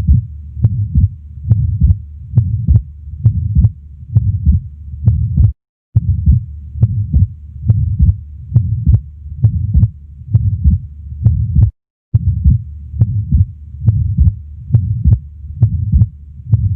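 Heartbeat heard through a stethoscope over the left base of the heart, a steady lub-dub rhythm with a murmur between the beats, from an atrial septal defect. The sound breaks off for a moment twice.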